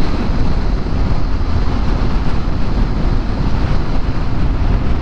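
Steady wind rush on the microphone from riding a Honda Forza 350 scooter at speed, with its engine and road noise underneath.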